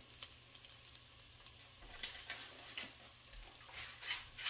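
Washed rice and seasonings sizzling gently in a pot on low heat, with scattered faint crackles.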